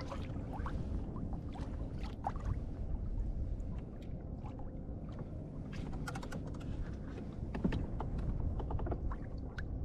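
Water lapping and trickling against a kayak hull as it glides along, in small irregular splashes and ticks over a low steady rumble.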